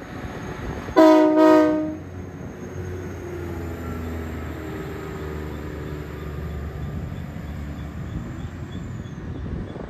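Locomotive horn sounds two short blasts about a second in, then the diesel engine of GREX locomotive 6002 rumbles steadily as the train passes. A crossing bell dings faintly and evenly throughout.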